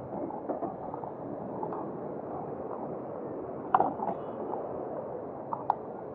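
Steady city street background noise, with a few brief knocks; the loudest comes nearly four seconds in, and two or three smaller ones come near the end.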